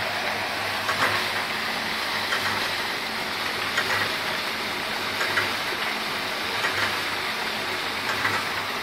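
Homemade 55-gallon steel-drum cement mixer turning under an electric motor that drives it through a small pulley: a steady low motor hum under the continuous rushing churn of wet concrete and aggregate tumbling past the agitators inside, with occasional faint clacks.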